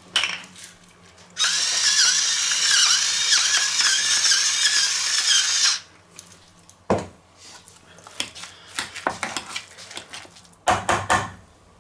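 A small electric motor whirring loudly for about four seconds, its pitch wavering slightly, then stopping abruptly. Near the end, a metal potato masher is worked through mashed potatoes in a stainless steel pot, with a few knocks and scrapes against the pot.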